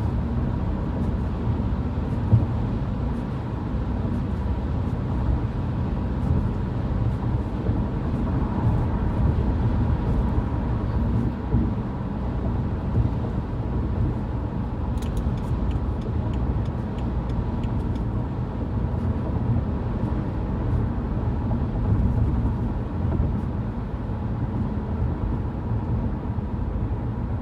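Steady road and engine noise heard inside a moving car, a low even rumble, with one sharp knock about two seconds in.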